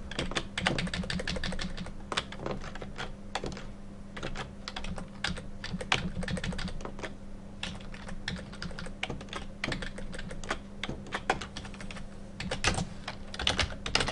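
Typing on a computer keyboard: irregular keystrokes in quick runs with short pauses, over a steady low hum.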